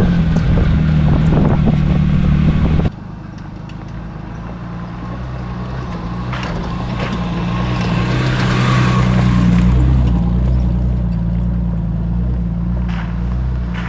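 Jeep driving on a backcountry trail, its engine running steadily. It is loud and rumbling for the first three seconds, then cuts suddenly to a quieter engine drone. The drone swells and eases off around ten seconds in, with a few short knocks from the rough track.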